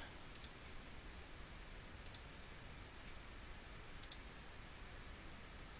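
A few faint, separate computer mouse clicks over a low steady hiss.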